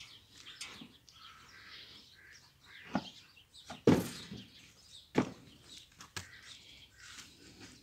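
Faint birds chirping in a farmyard. Several sharp knocks fall between about three and six seconds in, the loudest about four seconds in.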